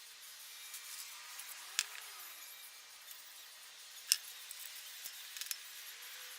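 Light metallic taps and clinks of a small punch and tools on the metal case of a new differential seal as it is tapped into place, with two sharper taps about two and four seconds in and a few faint ones near the end.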